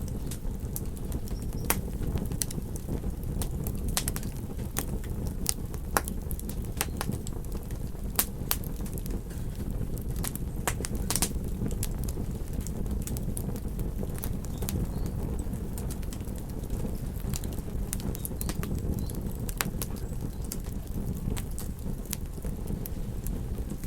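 Campfire wood crackling with sharp, irregular pops, over a steady low rumble.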